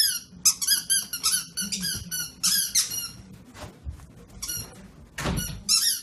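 A dog chewing a squeaky toy, squeezing out quick runs of short, high squeaks, several a second, with brief pauses between runs.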